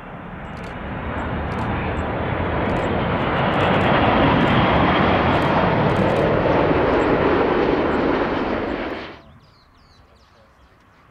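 Wide-body jet airliner's engines passing close by, a loud rushing roar that builds over the first few seconds, holds steady, then cuts off abruptly about nine seconds in.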